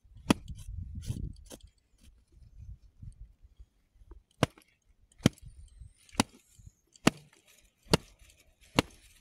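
A folded cloth slapped down again and again onto a thick flatbread baked in hot sand, knocking the sand and ash off its crust. The sharp slaps come once early, then about one a second through the second half.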